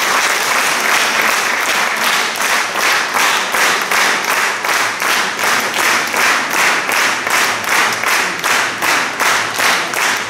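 Audience applause that, about two seconds in, turns into rhythmic clapping in unison at about three claps a second.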